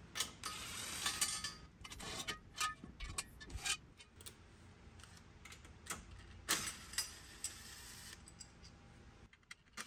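Scattered light clicks, knocks and clatter of hand-tool work: a cordless drill driver working loose plastic body rivets and small bolts, with parts being handled. The clicks come thickest at the start and again about two thirds of the way through.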